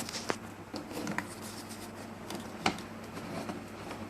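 Electric fan running with a steady low hum, with a few light clicks and taps of handling, including one sharper click near the middle.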